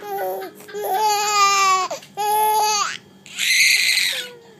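Fake sneeze: a drawn-out, wavering "aah", a shorter "aah", then a hissing "choo" burst about three seconds in. A brief high vocal sound at the very start.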